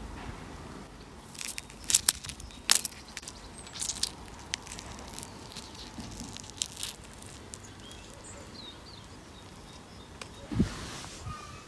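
Fruit being crushed by hand: irregular crackling, snapping bursts as the skin and flesh give way, loudest about two seconds in, with a low squelching thump near the end.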